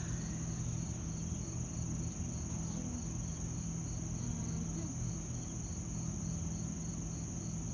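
Crickets chirring steadily in a high-pitched chorus, with a pulsed chirp repeating evenly a few times a second, over a steady low hum.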